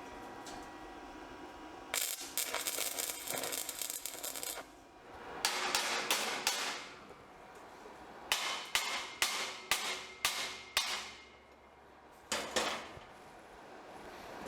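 Hammer striking steel wire mesh and angle-iron frame: a run of about eight sharp, ringing metal strikes in under three seconds, and one more near the end. Before that comes a crackling stretch of about two and a half seconds.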